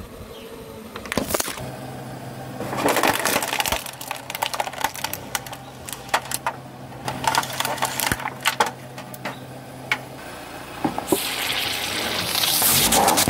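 Plastic bottles and a clear plastic clamshell container crackling and snapping with many sharp cracks as a car tyre rolls over and crushes them. Near the end a liquid-filled plastic bottle is squeezed under the tyre and bursts with a loud rushing spray of liquid.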